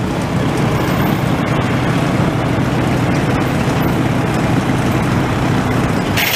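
Diesel engine of a semi truck running at low speed as the rig pulls slowly past. There is a brief high-pitched sound near the end.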